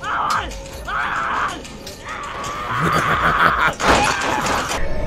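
Screaming in several short bursts, then a longer, louder stretch of about two seconds near the middle and a last burst near the end.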